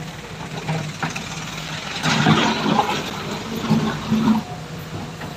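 Engines of slow-moving cars and trucks passing close by in a crawling queue: a steady low engine hum that grows louder for a while about two seconds in.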